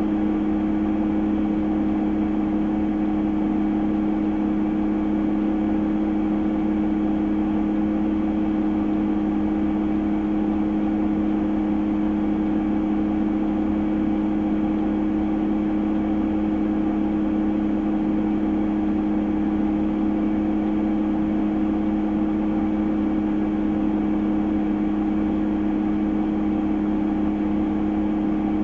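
Vehicle engine running steadily: an unchanging hum with two strong low tones that holds at the same pitch and level throughout.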